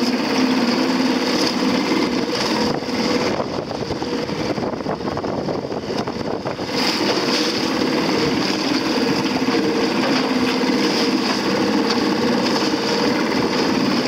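A motorboat's engine running steadily while towing a small dinghy, with a steady hum and a higher whine. The whine drops away and the engine runs a little quieter for a few seconds around the middle, then comes back.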